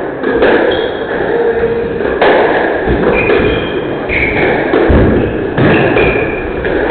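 Squash rally: the ball is struck hard by racquets and hits the walls every second or two, with shoes squeaking on the wooden court floor between the shots.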